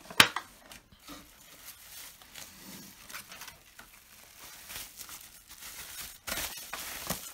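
Bubble-wrap bag crinkling and rustling as a plastic airbrush case is slid into it, thickest near the end. One sharp plastic click comes just after the start as the case is handled.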